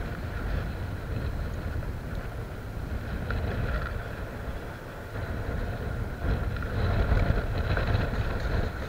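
Wind buffeting the camera microphone in a steady low rumble, with cloth from a sleeve brushing over the microphone.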